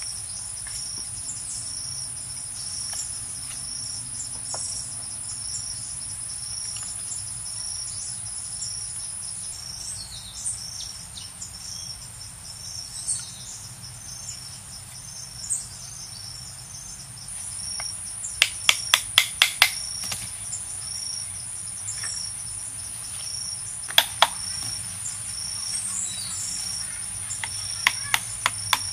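Steady high insect drone with a chirp repeating about twice a second. Sharp knocks of a knife on bamboo: a quick run of about eight a little past halfway, one more a few seconds later, and several near the end.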